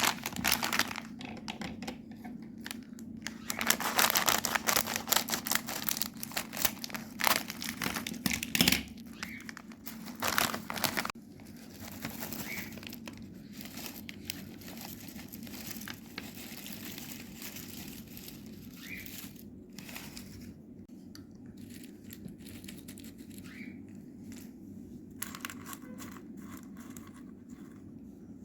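Chocolate wrapper crinkling and tearing as it is opened, in dense crackles for roughly the first ten seconds, then dropping to faint, sparse rustling.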